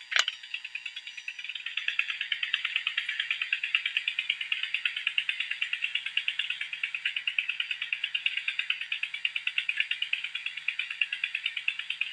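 A single sharp click right at the start as the pressure cooker's metal whistle weight is set onto the lid's vent, over a steady chorus of frogs calling in quick, even pulses, several a second.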